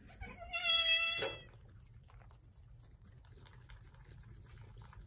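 Newborn Angora goat kid bleating once, a high, thin, steady cry lasting a little under a second, about half a second in.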